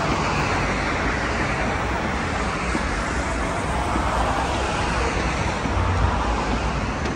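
Steady road traffic noise: a continuous wash of passing cars with a low rumble.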